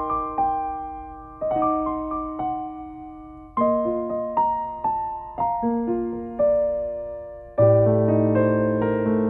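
Background music: a soft electric piano playing slow chords, each struck and left to fade, with fuller chords and bass notes coming in near the end.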